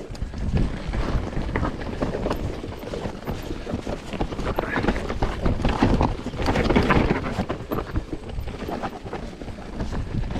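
Mountain bike descending a rough trail: tyres rattling over rocks and roots with many short sharp knocks, under a steady rush of wind on the camera microphone that swells and fades every few seconds.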